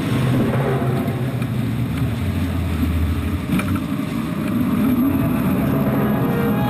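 Motorboat engine running steadily, its low hum shifting a little in pitch over rushing noise.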